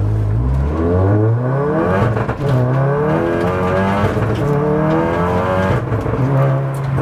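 Big-turbo, stage 3 Mk7 VW Golf R's turbocharged 2.0-litre four-cylinder engine accelerating hard from walking pace, heard from inside the cabin. The revs climb steeply three times, with a gear change about two and about four seconds in. The engine then settles to a steady cruise near the end.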